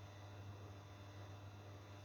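Near silence with a faint steady low hum: the pause between a sleeping person's snores.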